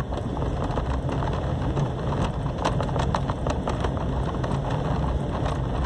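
Car running along a dirt road, heard from inside the cabin: a steady engine and tyre noise with frequent small clicks and knocks.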